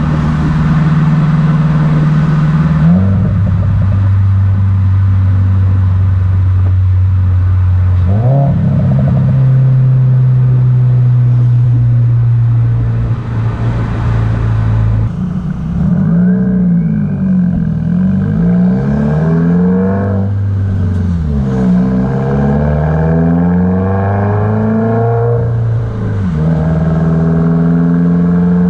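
Subaru WRX's turbocharged 2.0-litre flat-four running through an aftermarket exhaust. It holds steady revs with sudden jumps in pitch, then is revved up and down several times in the second half.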